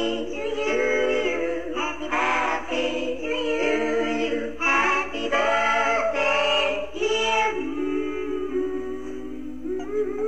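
Background music: several voices singing together in harmony, holding long notes with no beat.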